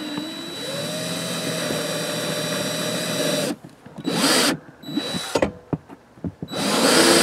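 Power drill boring a pilot hole down through carpet into the plywood floor. The motor runs steadily for about three seconds, stops, gives a short burst, then a few light clicks follow, and it runs again near the end.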